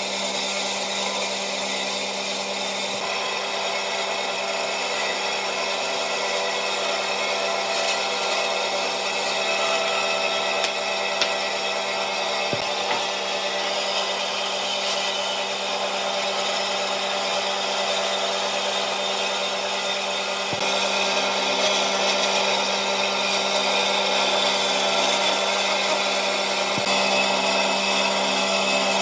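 Electric woodworking power tool running steadily on wood, a constant motor hum under a rough grinding noise that grows a little louder about two-thirds of the way through.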